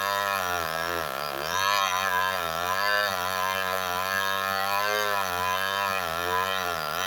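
Engine idling steadily, its pitch wavering and dipping briefly twice.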